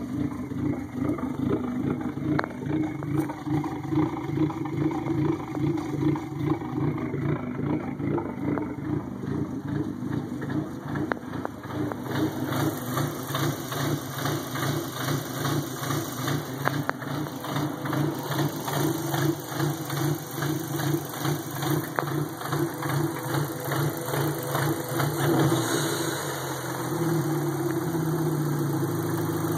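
2003 Dodge Neon SRT-4's turbocharged four-cylinder engine idling rough and lumpy, swelling and dipping about once a second like a car with big aggressive cams. The owner says it has only mild cams, and a shop could not find the cause. Near the end the idle turns smoother and steadier.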